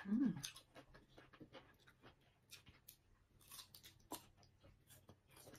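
Faint, close-up chewing and biting on slices of green mango, with scattered crisp mouth clicks and a sharper click about four seconds in. A brief hummed sound at the very start.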